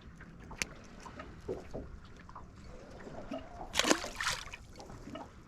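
Small splashes and sloshing of water around a small fishing boat, with a few sharp clicks and a louder splash about four seconds in.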